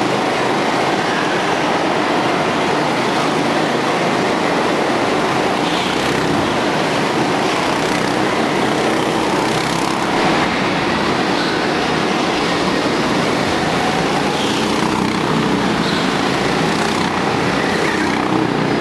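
Go-kart engines running as several karts lap an indoor track, making a steady, loud, continuous din inside a large hall, with engine notes faintly rising and falling as karts pass.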